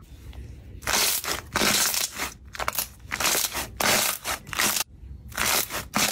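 Thick blue slime being squeezed and pressed between the hands in a metal bowl. About a second in, a rapid run of squelching, crackling bursts begins, with a brief pause near the end.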